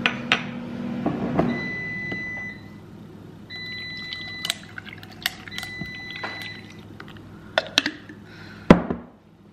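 Strawberry lemonade poured from a metal cocktail shaker over ice into a glass mason jar, with clinks of ice and glass. A sharp knock near the end.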